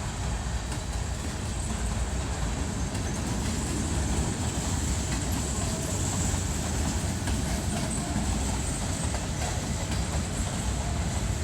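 Empty freight cars of a grain train rolling past on the rails, a steady rumble of wheels on track.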